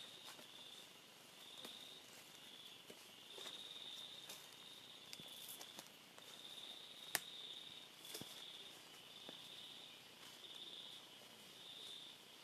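Faint, high insect chorus in the forest, pulsing in repeated phrases about a second long, with scattered small clicks and one sharp click about seven seconds in.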